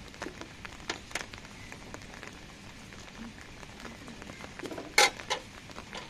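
Hands mixing wheat flour and water in a steel bowl, with light clicks of bangles and steel against the bowl over a steady hiss. About five seconds in there is a sharp metal clink, the loudest sound, as a steel tumbler is set down on a steel lid.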